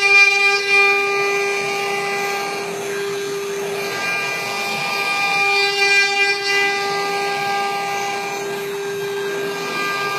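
Multi-spindle CNC wood carving router running, its spindles giving a steady high whine with several even overtones. The whine gives way briefly to a rougher hiss about three seconds in and again near the end.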